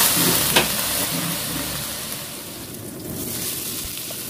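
Food sizzling in a wok: chicken and potato pieces in a reduced sauce, with one sharp knock about half a second in. The sizzle fades around two seconds in, then a softer sizzle follows from a whole fish and ginger slices frying in oil.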